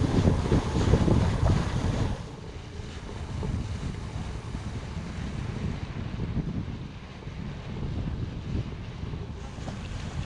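Wind buffeting the microphone over the wash of water along a sailboat's hull as it moves through the bay. Louder for the first two seconds, then softer and steadier.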